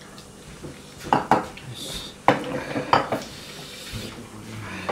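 Ceramic plates and dishes clinking and knocking on a table, a few sharp knocks between about one and three seconds in, with softer handling noise between them.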